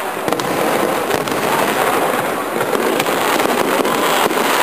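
Fireworks display: a dense, continuous crackle of many small bursts, with scattered sharper pops.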